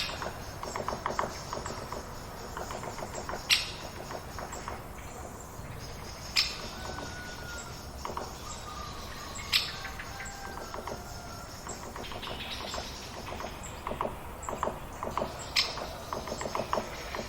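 Forest-edge countryside ambience: birds calling over a steady outdoor background, with bursts of quick chattering notes and a sharp, high single call recurring about every three seconds.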